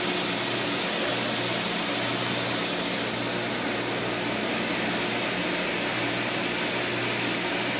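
Steady, loud rushing noise of a steam turbine plant around a reheat stop valve, with a low hum under it. It holds even, with no clunk or change.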